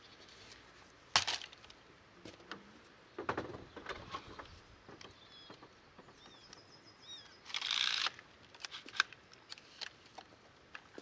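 Knocks, clatter and a short scrape as a long-reach pole hedge trimmer is handled and set against the metal cargo bed and rack of a Kubota utility vehicle. A sharp knock comes about a second in, a few clunks around three to four seconds, and a scraping rush lasting about half a second after seven seconds.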